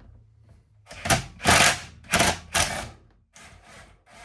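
Impact driver hammering in four short bursts, then a weaker one, working loose a stuck hex bolt in the bottom of a 1998 Kawasaki ZX11 fork leg that would not turn with a ratchet.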